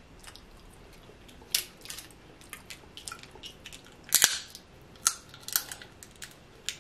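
Snow crab leg shells being cracked and snapped apart by hand: a series of sharp cracks, the loudest cluster about four seconds in.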